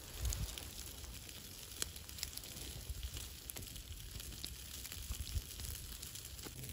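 Wood campfire crackling with scattered sharp pops over a steady sizzling hiss, as slices of meat sear on hot stones set around the fire.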